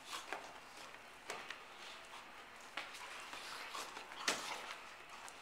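Dogs play-wrestling: scattered scuffs and taps of paws and claws on the floor, with a sharper thump about four seconds in.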